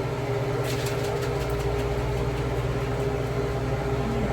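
Steady mechanical hum of a running kitchen appliance, with a constant mid-pitched tone over a low drone; the low drone evens out about a second in.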